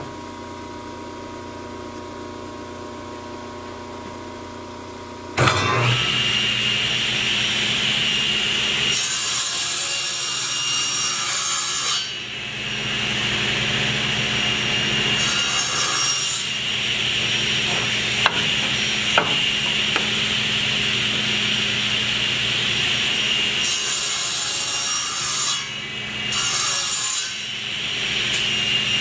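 A table saw runs after a steady lower hum, starting with a sudden jump about five seconds in. It then runs steadily while its blade cuts hardwood in repeated passes to form the cheeks of a tenon, with louder, hissier stretches as the blade bites into the wood.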